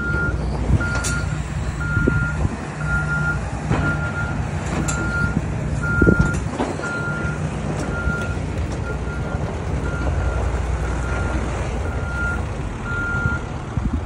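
A vehicle's reversing alarm beeping steadily about once a second over a low engine rumble, stopping shortly before the end. A few knocks cut through, the loudest about six seconds in.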